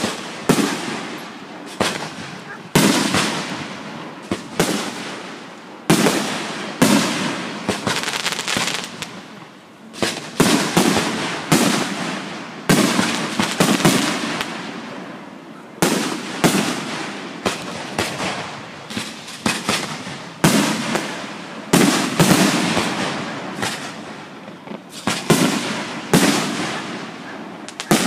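Fireworks display: aerial shells bursting one after another, a sharp bang every second or so, each trailing off in a rolling echo.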